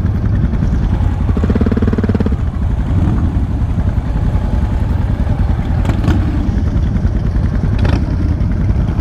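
Motorcycle engines running in a steady low rumble, with a short pitched tone about a second and a half in.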